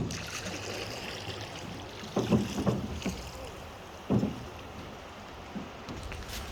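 A boat being rowed on a river: water running under the hull, with a few short low thumps from the oars and boat.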